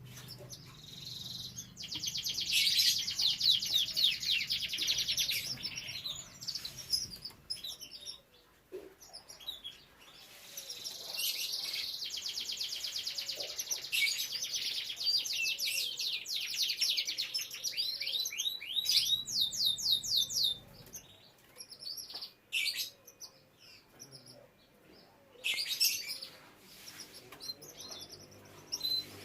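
Canary singing: a long phrase of rapid high trills, then after a short gap a longer run of fast rolling trills lasting about eight seconds, followed by scattered short chirps.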